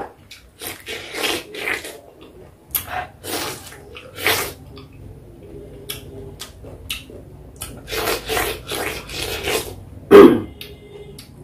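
Ripe pineapple flesh being torn apart by hand close to the microphone: irregular wet crackling and tearing of the juicy fibres. There is one loud, sudden burst near the end.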